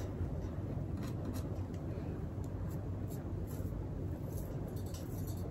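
A few faint scratchy strokes of a small edge brush through the hair along the hairline, over a steady low room hum.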